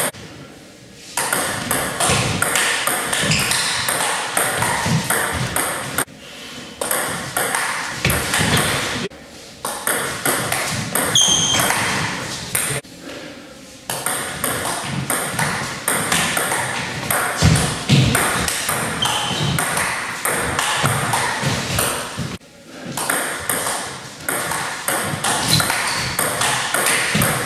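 Table tennis rallies: the ball clicking off the bats and bouncing on the table in quick back-and-forth strokes, with a few short pauses between points.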